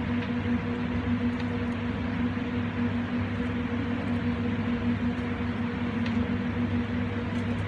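Steady mechanical hum with a broad rushing noise from a commercial kitchen's running equipment, constant in level, with faint light knocks of a wooden spoon stirring in a large metal pot.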